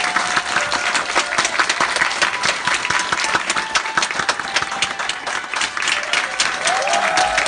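Audience and cast applauding together: the dense, steady clapping of many hands.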